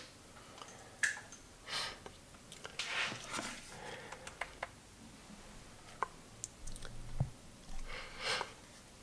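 Scattered faint clicks, rustles and soft handling noises as a small handheld wireless keyboard is picked up and held, with a sharper click about a second in and a soft thump about seven seconds in.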